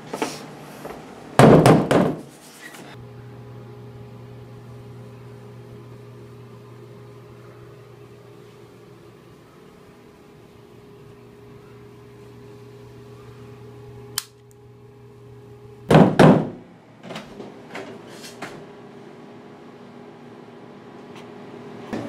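Two loud door-like bangs, about fourteen seconds apart, in a small room. Between them a steady electrical hum holds several fixed pitches, and there is a single sharp click shortly before the second bang.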